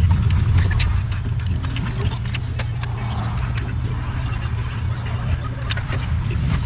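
Scattered light metallic clicks and clinks of hand tools against the diesel engine's camshaft gears and timing chain during assembly, over a steady low rumble.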